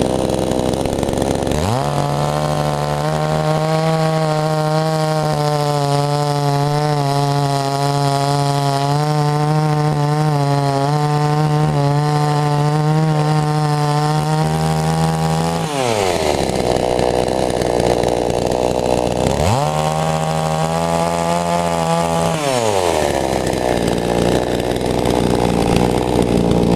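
Two-stroke chainsaw engine revved to full throttle and held at a steady high pitch for about thirteen seconds, then dropping back to idle; a little later it is revved again for about three seconds and drops back to idle.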